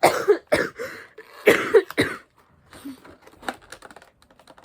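A few loud, short vocal sounds such as coughs in the first two seconds, then quick, irregular crinkling and clicking of plastic packaging as a blind-bag toy is opened.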